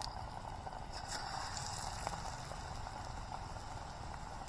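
Battered paneer pakoras deep-frying in a steel pot of hot oil: a steady sizzle dotted with small crackles and pops.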